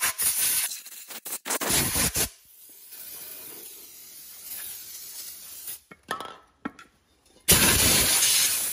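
Compressed-air blow gun blowing out an open engine crankcase: several short blasts of hissing air in the first two seconds, then a softer aerosol spray hiss, a few light clicks, and a long loud blast of air near the end.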